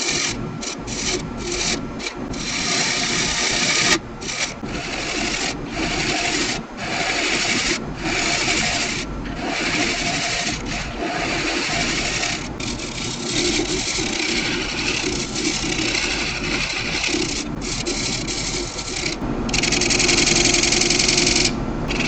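Turning tool cutting spinning laminated wood on a running wood lathe: a scraping cut in a string of passes, each lasting from under a second to a few seconds, broken by short gaps as the tool lifts off, over the lathe's faint steady hum.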